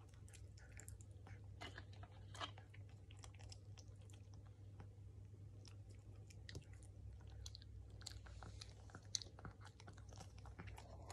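Shih Tzu eating soft food from a hand: faint, irregular wet clicks and smacks of chewing.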